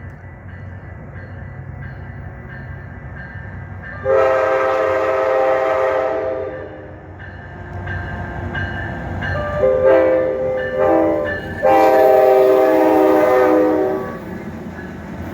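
A locomotive's air horn sounds a long blast, then two short ones and a final long blast, each a chord of several tones. Underneath runs the low rumble of the train, which grows louder.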